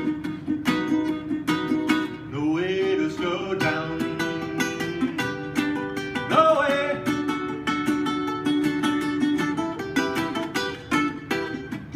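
Ukulele strummed in a steady, even rhythm with no sung words, with a few wordless vocal sounds that slide up in pitch about two and six seconds in.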